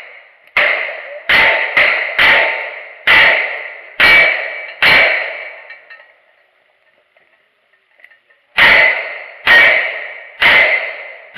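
A string of about seven gunshots, each with a ringing tail, roughly one every half to nine-tenths of a second. After a pause of about three and a half seconds with only small clicks, revolver shots resume about a second apart.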